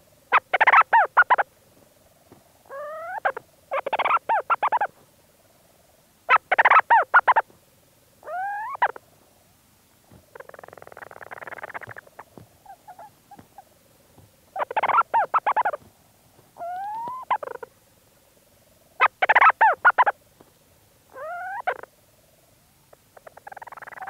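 Leach's storm petrel calling close up from inside its burrow: bursts of rapid stuttering chatter alternate every few seconds with shorter rising slurred notes, over a faint continuous purr. A short rustling noise about ten seconds in, from the bird moving in the burrow.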